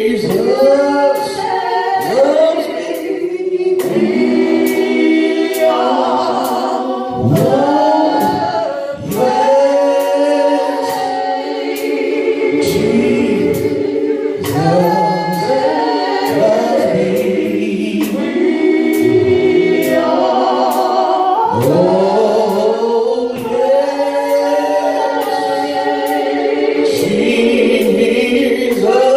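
Gospel choir singing praise and worship, with a steady beat of sharp strikes, under two a second.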